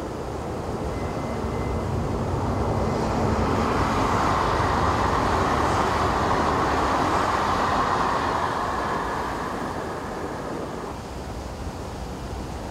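JR Central 383 series electric train passing by at speed: its running noise swells over the first few seconds, is loudest in the middle, and fades away near the end.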